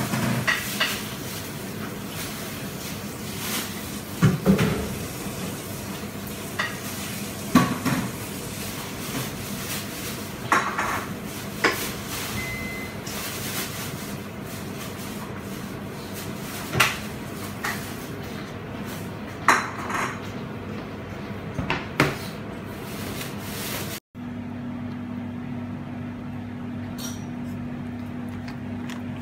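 Clams in a basin of water, their shells clinking and knocking now and then over a steady hiss. After a cut about 24 s in, a steady low hum with a few faint ticks.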